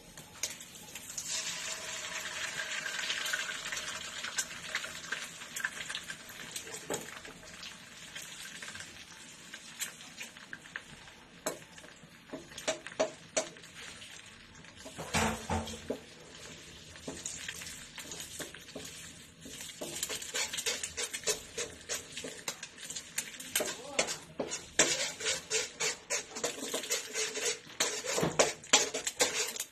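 An egg drops into hot oil in a wok and sizzles, loud at first and dying down over several seconds. Then a metal slotted turner scrapes and knocks against the wok as the egg is broken up and stirred, the clicks and scrapes coming faster near the end.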